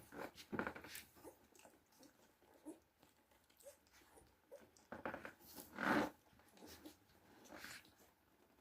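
Twelve-day-old Cane Corso puppies making short, irregular sounds, the loudest about six seconds in.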